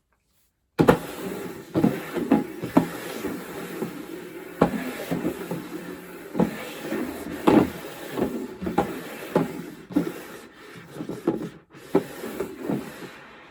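Objects being handled: irregular knocks, clicks and clattering, with a rustle underneath. It starts abruptly just under a second in.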